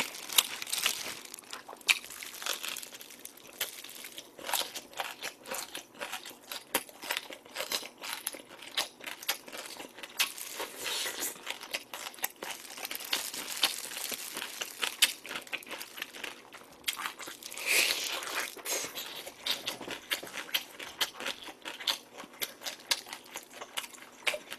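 Close-miked eating: chewing and crunching on pork neck-bone meat from gamjatang, with a disposable plastic glove crinkling as the bones are handled. A dense, irregular run of small clicks and crackles.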